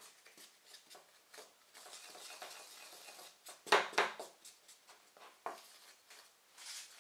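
A spatula stirring a dry mix of icing sugar and almond powder in a clear bowl: soft rustling scrapes through the powder, with a couple of sharp taps of the spatula against the bowl a little past halfway and another one later.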